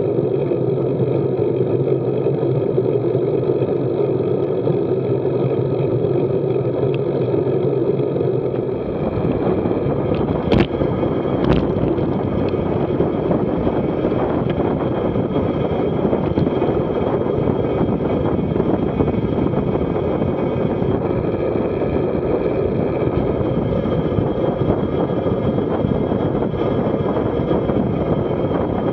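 Wind rushing and buffeting over the camera microphone as a road bike descends at about 38 mph. It is a steady rush at first, turning into a heavier, lower rumble about nine seconds in, with two sharp clicks a second apart soon after.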